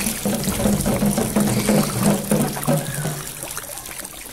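Water sloshing, pouring and trickling, played by hand as a sound effect, over low pitched tones that pulse repeatedly; it all grows quieter in the last second or so.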